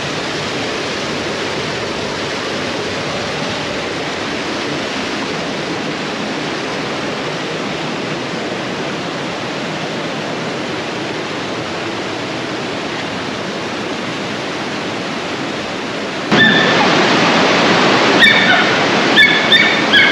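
Stream water rushing and cascading over rocks and small waterfalls, a steady rushing noise that suddenly gets louder about 16 seconds in. Near the end a few short high chirps sound over the water.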